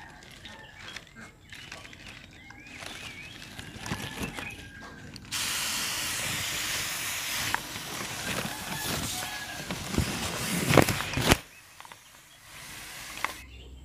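Hand-pump pressure sprayer misting liquid: a steady hiss that starts suddenly about five seconds in and cuts off abruptly some six seconds later, with a few sharp clicks near its end.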